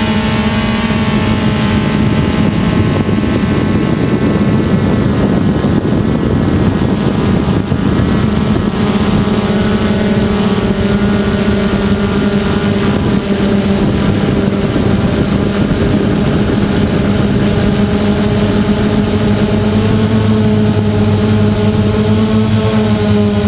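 DJI Phantom quadcopter's electric motors and propellers buzzing steadily, heard from the GoPro camera carried on the drone itself, over a rush of air. The pitch shifts slightly a few times.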